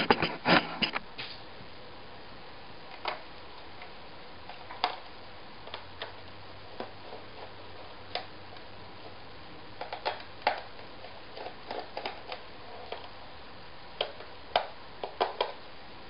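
Small irregular clicks and ticks of a screwdriver turning out the screws of a Dell XPS L502X laptop's bottom access panel, with a cluster of louder knocks in the first second.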